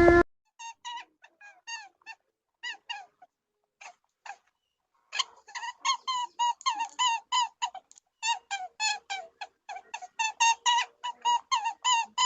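A small animal peeping: short, high calls that dip in pitch, sparse at first and then in fast runs of about four a second from about five seconds in.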